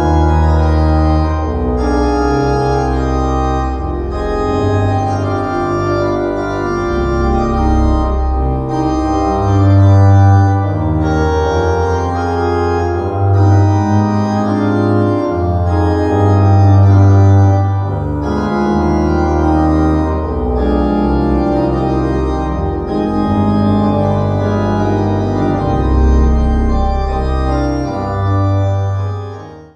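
Organ music: slow sustained chords over deep held bass notes, played from a CD on a hi-fi system, fading out near the end.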